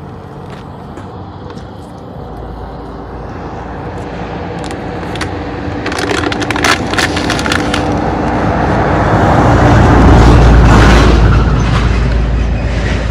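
A vehicle driving on a rough unpaved track: a low engine and tyre rumble swells to a peak about ten seconds in and then eases a little. A cluster of sharp crackles comes about six to seven seconds in.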